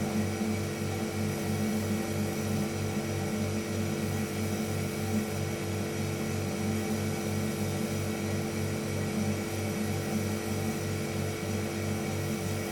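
Household refrigerator running, its compressor giving a steady electric hum made of several fixed tones, with a fast, even throb in the low end of about three beats a second.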